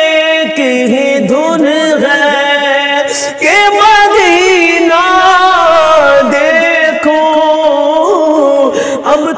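A man singing an Urdu naat (devotional praise poem) solo, drawing out long ornamented phrases that glide up and down in pitch. A steady low drone holds underneath.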